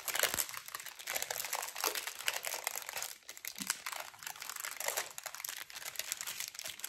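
Thin clear plastic bag crinkling and crackling as hands work it off a strip of diamond-painting drill sachets, a busy run of crackles with short pauses.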